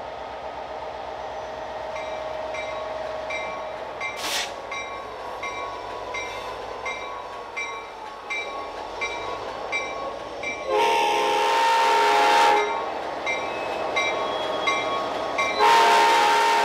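Locomotive air horn sounding two blasts: one about two seconds long past the middle, and a second starting near the end. Before the first blast, a steady rail-vehicle rumble with a regular light ticking.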